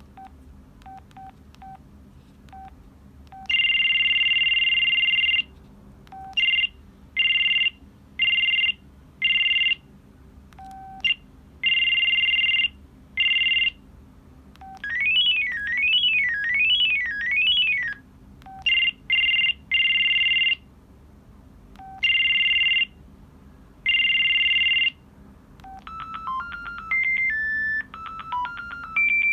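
An Audiovox CDM-8200 cell phone playing its built-in electronic ring tones one after another through its small speaker, with short single key beeps between them. Most are a two-pitch ring in bursts of different rhythms. One sweeps up and down several times, and near the end a simple one-note-at-a-time melody begins.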